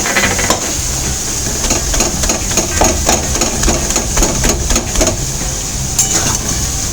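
Spatula knocking and scraping in a pan as mutton mince is stirred and fried, with irregular sharp knocks over a steady sizzle.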